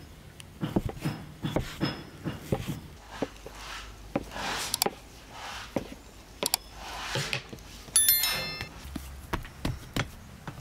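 Large kitchen knife chopping through soft dough onto a wooden cutting board: a series of dull knocks, closely spaced early on and more spread out later. About eight seconds in, a short electronic bell chime sounds.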